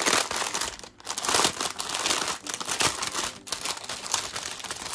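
Clear plastic wrapping crinkling as hands pull and handle it around a strip of small bagged drill packets, in irregular rustling bursts with a brief lull about a second in.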